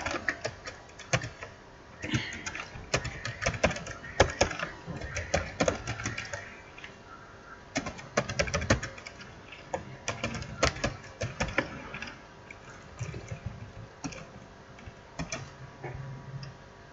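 Typing on a computer keyboard: irregular key clicks in short runs, with brief pauses between them.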